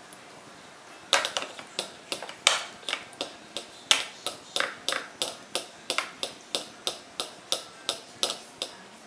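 Chewing and lip-smacking of someone eating: a regular series of sharp wet clicks, about three a second, starting about a second in.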